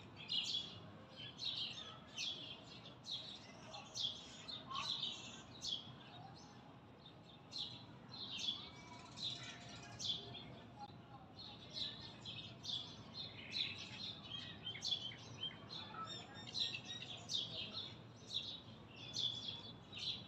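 Small birds chirping: a busy, continuous run of short, high chirps, one after another.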